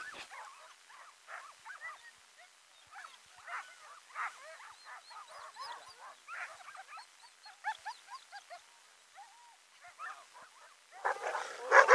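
Harnessed Alaskan husky sled dogs whining and yipping, many short rising-and-falling cries overlapping, getting louder about eleven seconds in. It is the excited noise of a hitched team waiting to run.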